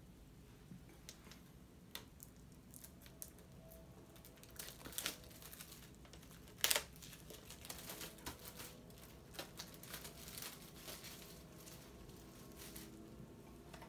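Plastic wrapping being torn and crinkled off a Blu-ray steelbook case: irregular crackling and rustling, with louder snaps about five and seven seconds in.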